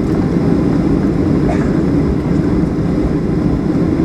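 Steady, loud low rumble inside the passenger cabin of a Boeing 737-800, from its CFM56 engines and the airframe, on the ground just after landing.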